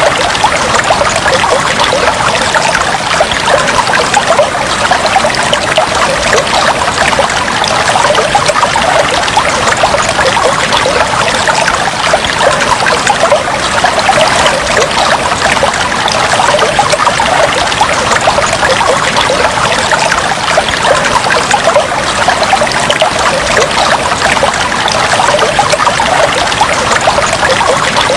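Fish tank water trickling steadily, a dense, even stream of small splashes with no pause or change.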